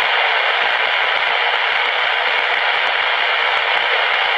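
Baby monitor parent unit's speaker hissing with steady radio static, no voices coming through. The hiss is thin and tinny, with no deep sound and no hiss at the very top.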